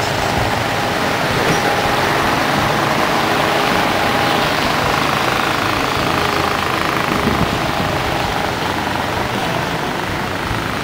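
Steady city street traffic noise: car and motorbike engines running and tyres on the road, a continuous din with no single event standing out.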